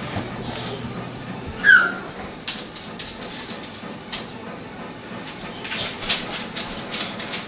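A single short, high squeal that falls in pitch about two seconds in, over low room noise, followed by a scattering of light taps and rustles.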